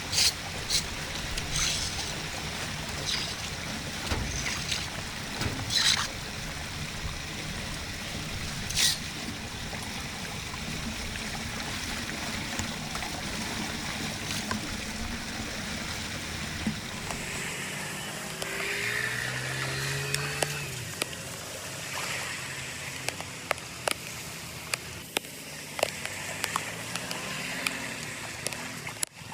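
Flowing, draining water with a steady rushing noise, broken by sharp knocks and clacks in the first several seconds. About two-thirds of the way in, the low rumble under the water noise drops away, leaving lighter trickling with scattered ticks.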